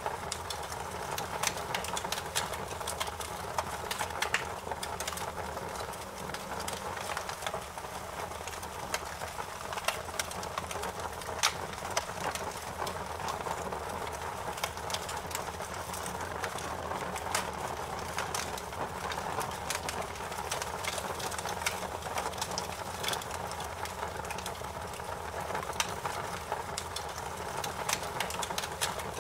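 Fire crackling in a fireplace: a steady hiss with frequent short, sharp pops.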